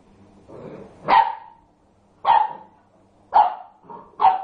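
A puppy barking angrily: four sharp, short barks about a second apart.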